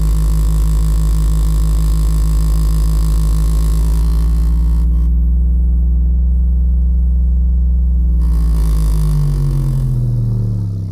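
15-inch NVX VCW dual-voice-coil subwoofer playing a loud low bass tone with a pulsing, clicking rattle riding on it, an abnormal noise the owner cannot trace to any visible tear or broken joint. The clicking drops out for a few seconds in the middle and comes back, then the tone rises in pitch and fades near the end.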